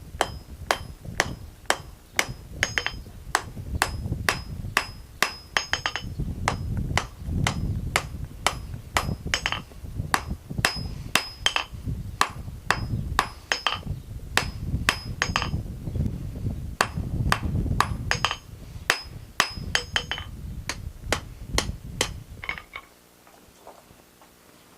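Blacksmith's hammer striking a 1/4 x 1 inch steel bar on an anvil in a steady rhythm, about two and a half blows a second, each with a bright ring, as the end of the bar is rounded off. A low rumble runs underneath, and the hammering stops near the end.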